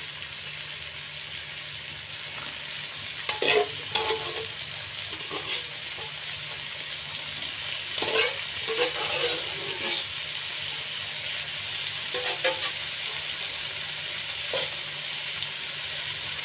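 Boiled chicken pieces and chicken feet sizzling as they fry in chili spice paste in a wok. A few louder knocks and scrapes come about three and a half seconds in and again from about eight to ten seconds in, as more pieces go in and are moved about.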